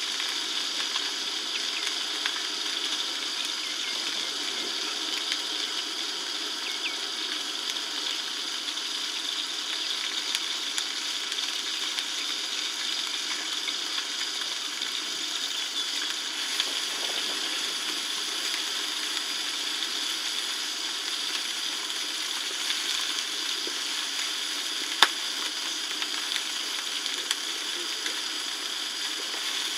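Steady, even hiss of background noise, with one sharp click about 25 seconds in.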